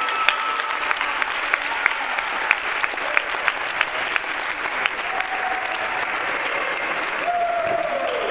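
A small crowd applauding, with sharp individual claps standing out over the steady clapping in the first half.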